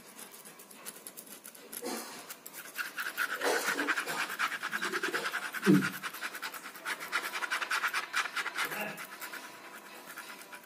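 Ballpoint pen scratching in rapid back-and-forth hatching strokes, louder and denser from about three seconds in until near the end. A short louder low sound cuts in just before the middle.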